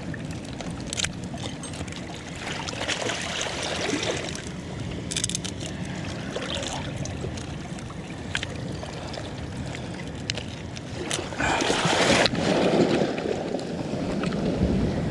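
Sea water sloshing with wind noise, broken by a few sharp knocks. The water noise swells louder about eleven seconds in, then drops off suddenly.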